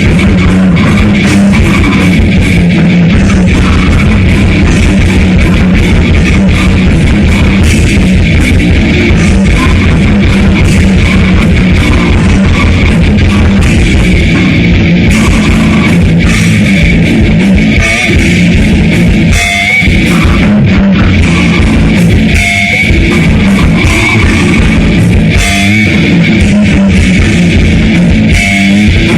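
Grindcore/death metal band playing loudly and without a break: distorted electric guitars with bass and a drum kit, the drumming fast and dense.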